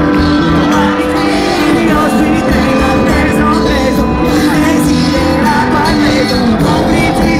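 A live band playing loud, amplified rock music through a concert PA, with some singing, heard from within the crowd.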